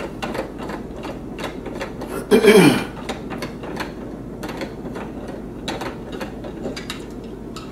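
Threaded PVC pipe union being twisted by hand, its plastic threads giving a run of small irregular clicks and creaks.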